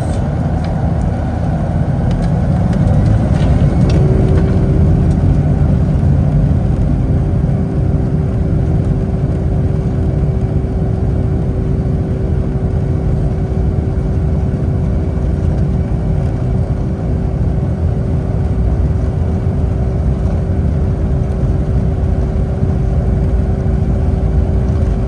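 Boeing 757 jet engines and airflow heard from inside the cabin as a loud, steady rumble. It swells over the first few seconds, and a steady humming tone joins it about four seconds in and holds.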